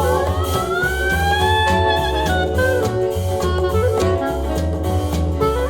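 Recorded song played through a 50-year-old Luxman L&G S-25 loudspeaker: an instrumental break, a lead line sliding up in pitch over a steady bass and drum beat.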